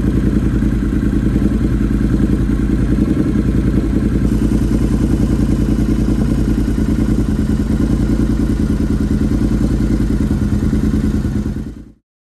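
Triumph Thruxton R's 1200 cc parallel-twin engine idling steadily with an even, pulsing exhaust beat, fading out near the end.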